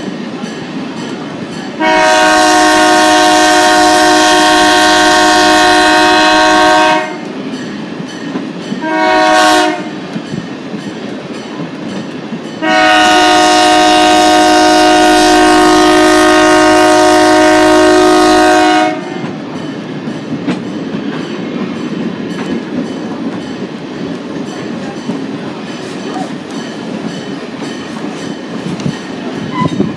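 Horn of an Alco S1 diesel switcher locomotive sounding a long blast, a short one and another long one. Under it the steady rumble and clatter of the train riding the rails.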